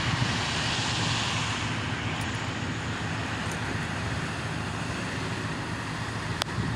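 Steady outdoor background noise: a low rumble with a hiss over it, and a single sharp click near the end.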